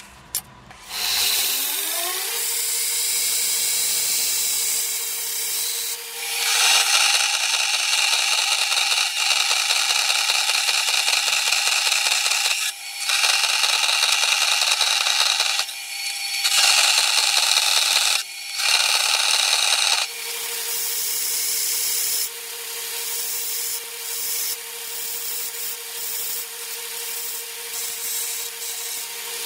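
A belt grinder's motor spins up to a steady whine. Then a metal-cutting bandsaw cuts through a 1070 and 15N20 damascus steel bar with a loud, bright rasping noise that breaks off briefly three times. The belt grinder returns, running and grinding steel, and winds down right at the end.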